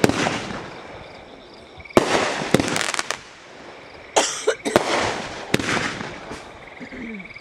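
Aerial firework shells launching and bursting overhead: a series of sharp bangs, each trailing off in an echoing rumble. There is a quick cluster of reports about two to three seconds in, and more bangs around four to five and a half seconds.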